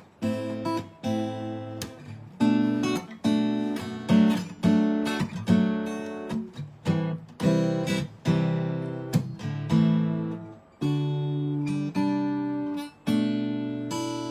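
Acoustic guitar strummed, a run of chords each struck sharply and left to ring, about one to two strums a second. The guitar is tuned low, which the player takes for a dropped tuning he left it in.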